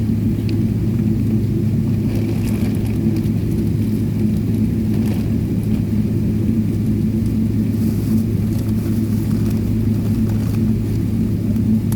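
Steady cabin drone inside a Boeing 777-300ER taxiing after landing: the engines and air system giving a low, even hum with a few steady tones in it.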